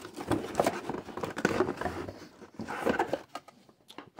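Cardboard scraping, rustling and knocking as a corrugated cardboard spacer insert is shifted and lifted out of a shipping box; irregular scuffs and light knocks that ease off about three seconds in.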